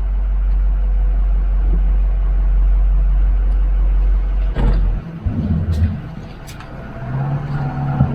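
Motorhome's engine and road noise: a steady low rumble that cuts off suddenly about five seconds in, followed by a quieter stretch of vehicle sound with a few clicks near the end.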